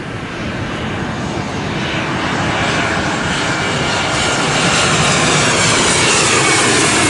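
Jet airliner, an Airbus A321 narrow-body, flying low on its landing approach. Its engine noise swells steadily louder as it closes in overhead, the hiss spreading higher in pitch as it nears.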